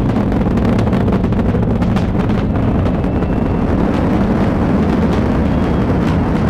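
Space Launch System rocket's engines and solid rocket boosters in flight, a loud steady rumble with a crackling texture.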